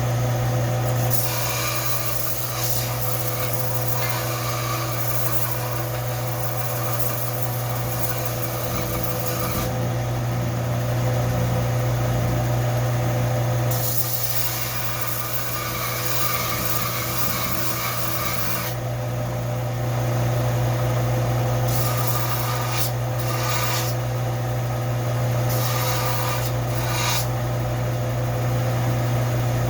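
A rusty carving-tool blade being rubbed by hand against an abrasive, in long runs of scratchy strokes with short pauses between them, over a steady low hum.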